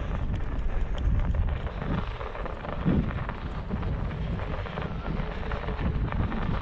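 Steady riding noise from a Xiaomi M365 Pro 2 electric scooter ploughing through dry powder snow: wind rumbling on the microphone over the tyres' noise in the snow.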